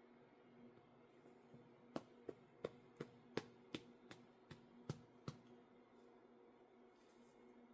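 A quick run of about eleven sharp clicks, roughly three a second, over a faint steady hum.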